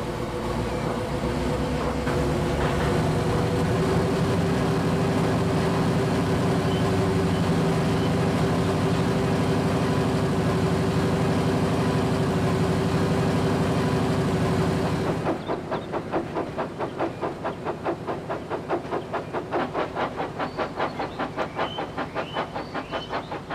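Diesel locomotive running with a steady hum. About fifteen seconds in it cuts to a quieter train on the move, with an even rhythmic beat of about three a second.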